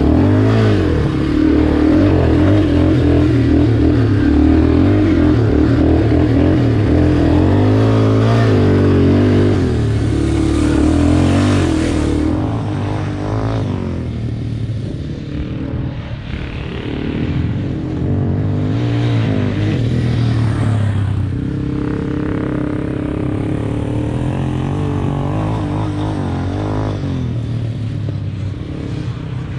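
Yamaha Warrior 350/366 quad's single-cylinder four-stroke engine running under throttle, its pitch rising and falling as it revs and eases off. Close up for the first twelve seconds or so, then heard from farther away, lower in level.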